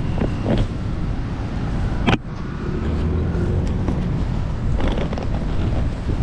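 Steady rumble of road traffic with wind on the microphone, broken by a sharp click about two seconds in and a few fainter knocks.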